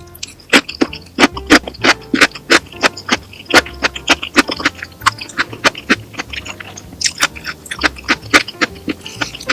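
Crunchy food being bitten and chewed close to the microphone: a quick, irregular run of sharp crackling crunches, a few a second.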